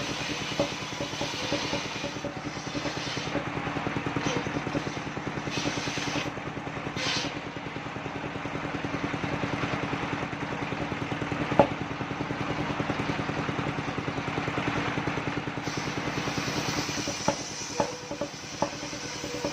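Engine of a portable circular-saw sawmill running steadily with a fast, even beat, with a few clicks and one sharp knock about twelve seconds in.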